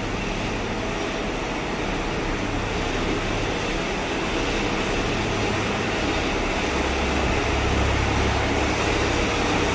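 Steady mechanical hum and whir heard from inside a car's cabin as the car is lifted up a car vending machine tower, with the car's own engine and air conditioning left running. It grows slightly louder toward the end.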